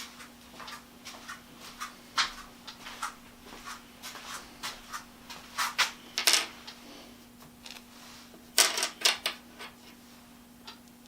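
Steel part and hand tools being handled on a workbench: irregular light clicks and knocks, with louder clusters about two, six and nine seconds in, over a faint steady hum.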